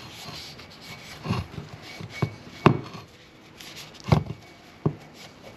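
Rag wiping the steel outer cup of a CV joint, with about five sharp knocks as the cup and axle bump the wooden workbench while being handled. The loudest knock comes about halfway through.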